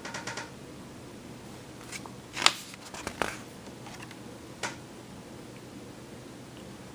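A picture book's page being turned by hand: a few short paper rustles and flicks, the sharpest about two and a half seconds in, with others shortly after, over a faint steady hiss.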